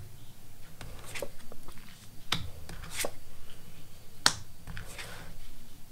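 Tarot cards being drawn off a deck and laid down on the table, with several sharp card snaps and slaps spaced unevenly.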